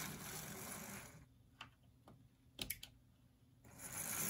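Tyco HO scale 0-6-0 steam locomotive with a Power Torque motor running on model track with a faint hiss, an uneven runner whose trouble the owner puts down to its armature. The hiss dies away about a second in, leaving a few light clicks, and comes back near the end.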